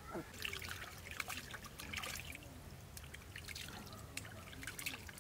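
Water trickling and splashing in short, irregular bursts.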